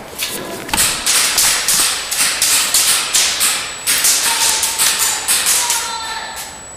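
A rapid string of sharp snaps, about four a second, with a short echo after each in a large hall. The snaps fade out near the end.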